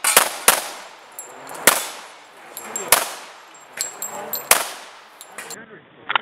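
Pistol shots fired one at a time at an uneven pace, five in about four and a half seconds, with faint high metallic clinks between them, typical of ejected brass casings landing on pavement. Near the end the sound turns duller and one more shot follows.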